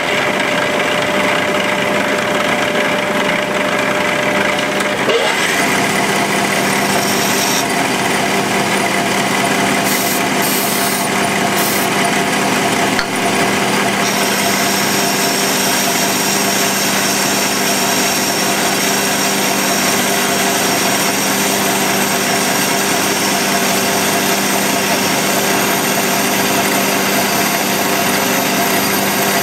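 A worn, old metal lathe running while an insert turning tool takes a light cut on a steel shaft. A loud, steady machining noise with several fixed tones, unbroken throughout.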